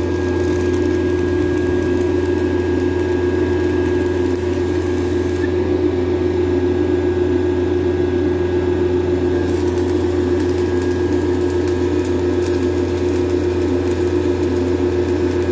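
Engine-driven welding generator running steadily, with the crackle of a stick-welding arc over its engine hum. The high crackle thins out for a few seconds in the middle.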